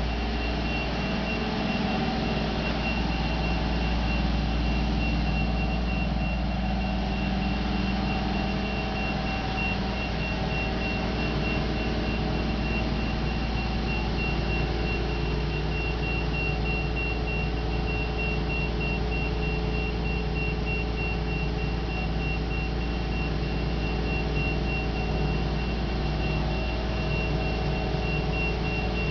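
Crane engine running steadily while lifting the yacht, a low even hum with a thin high whine over it.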